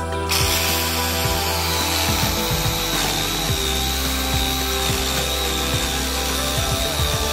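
A power tool running steadily over background music. It starts just after the opening with a hiss and a high whine that sags slightly in pitch after a second or two.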